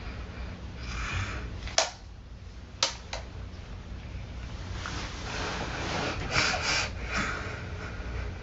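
A sleeping person breathing noisily between snores: a short breath about a second in and a longer one from about five to seven and a half seconds in. Three sharp clicks fall between about two and three seconds in.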